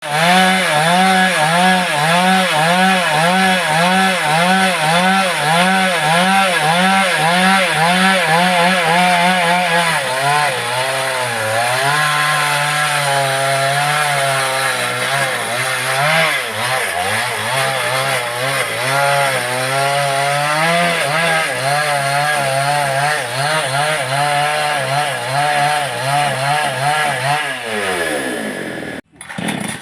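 Replica Stihl two-stroke chainsaw with a 24-inch guide bar running hard while cutting wood, its engine pitch rising and falling about twice a second and then wavering less evenly. Near the end the engine pitch drops and the sound cuts off.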